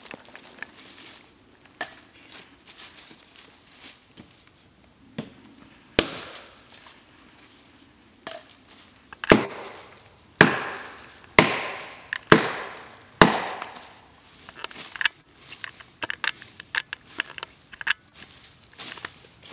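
Dry branches being broken up by hand and underfoot: a series of sharp wooden cracks and snaps, loudest in a run of about six between roughly 6 and 13 seconds in, with rustling of dry leaves and smaller clicks around them.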